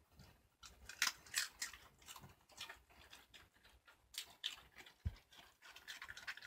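Shiba Inus chewing raw cabbage leaves, irregular crisp crunches and tearing. The crunches are loudest about a second in and again about four seconds in.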